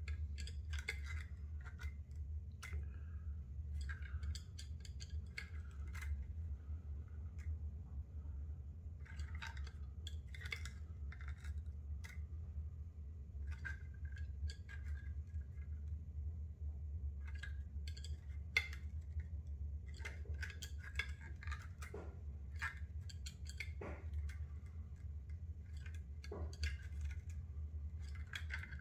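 Scattered light clicks, taps and small rattles from handling a brushless outrunner motor in a plywood motor mount as it is turned over in the hands, over a steady low hum.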